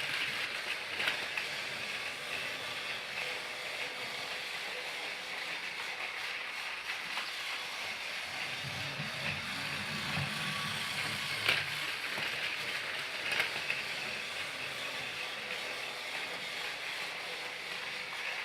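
Motorised Thomas the Tank Engine toy train running: a steady mechanical whir with a few sharp clicks.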